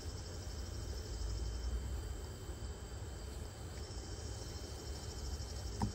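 Insects chirring steadily, a fast pulsing trill, over a low rumble, with one soft knock near the end.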